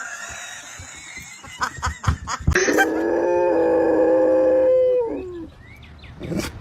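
A dog howling: one long, steady note of about two and a half seconds that drops in pitch as it trails off. A few sharp knocks come just before it.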